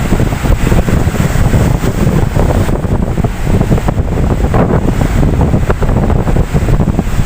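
Ocean waves washing and breaking in a continuous surge, overlaid by a heavy low rumble of wind buffeting the microphone.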